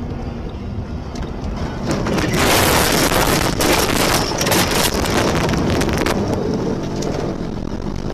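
A car ploughing off a snowy road into deep snow and brush. A loud rush of snow spray comes with rapid knocks as snow and branches strike the body, loudest from about two to six seconds in, then eases off.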